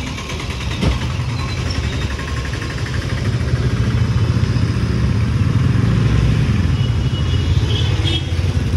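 Motor vehicle engines in street traffic running close by, growing louder about three seconds in, with an engine note rising and falling as a vehicle passes.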